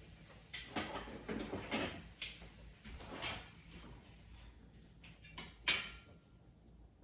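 Kitchen handling sounds: a cooking utensil knocking and scraping against a frying pan of cooking chicken, a handful of light, separate knocks with the sharpest near the end.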